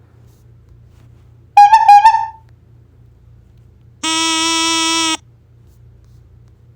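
Comedy sound effects played back one after another. About a second and a half in comes a short warbling honk, and about four seconds in a steady, buzzy horn-like blast lasting about a second.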